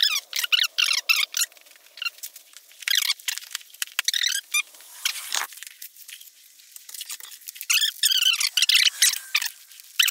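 Rapid, high-pitched squeaking and chirping, with no low sound under it: fast-forwarded sound of hands refitting the seat and plastic bodywork on a Yamaha XT250.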